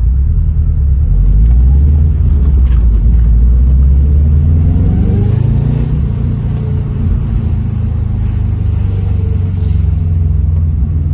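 Subaru Impreza GC8 running on the road, a loud low engine rumble whose pitch rises about halfway through as the car speeds up, then holds steady.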